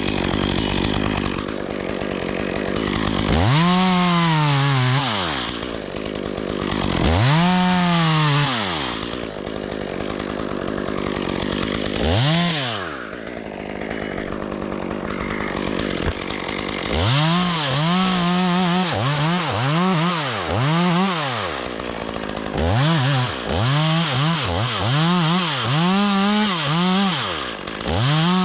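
Two-stroke chainsaw revved up and let fall back again and again, its pitch rising and dropping with each pull of the throttle. There are a few long revs in the first half, then quicker, shorter ones at about two a second.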